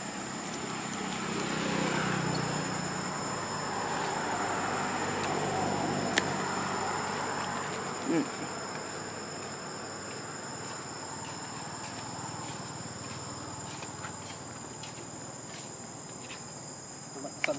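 Steady high-pitched insect chorus, a constant drone throughout, with a louder rustling, shuffling noise during the first half.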